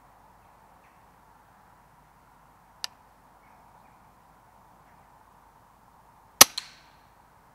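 Daystate Huntsman Safari PCP air rifle firing once, a sharp crack near the end, followed a fifth of a second later by a second, quieter crack. A single faint click comes about three seconds in.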